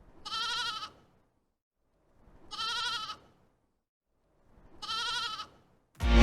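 A sheep bleating three times, each bleat under a second long with a quavering pitch, about two seconds apart with silence between. Music starts just at the end.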